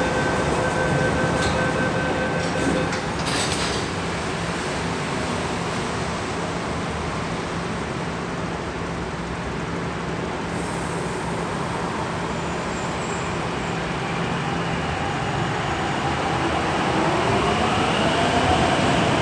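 MTR Kwun Tong Line C-train at an underground station platform: a steady hum and rumble, with two steady tones and a few clicks in the first three seconds, then the traction motors whine with rising pitch as the train pulls away over the last few seconds.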